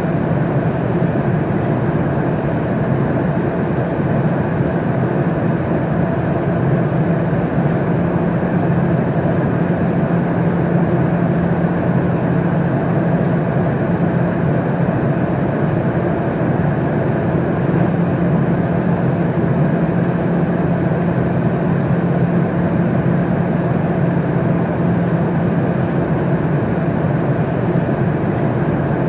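Aeroplane cabin noise in flight: a steady, even rush with a constant low hum running beneath it.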